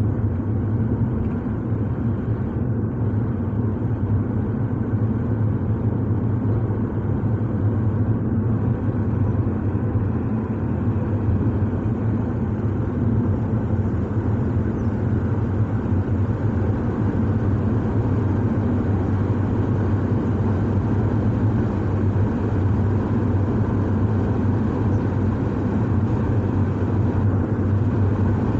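Steady low drone of a moving car, engine and tyre noise on the road, even in level with no breaks.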